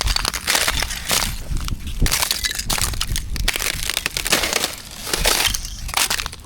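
Footsteps crunching on frozen snow and ice: an irregular run of crunches, about one or two a second.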